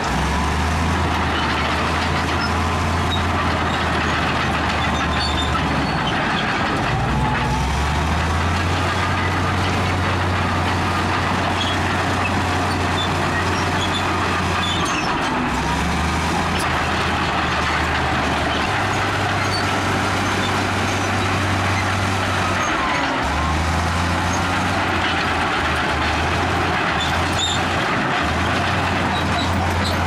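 Diesel engines of heavy earthmoving machinery working, with a steady broad rumble over a low engine drone that shifts up and down in pitch every few seconds.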